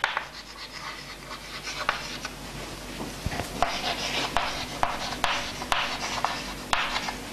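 Chalk writing on a chalkboard: a run of short, irregular scratching strokes with a few sharp taps as the chalk meets the board.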